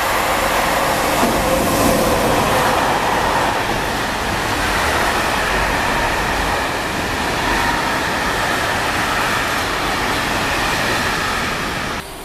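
Freight train of flat wagons behind an electric locomotive running through a station: a steady loud rumble and rattle of wheels on rails, with faint ringing tones over it. It cuts off abruptly near the end.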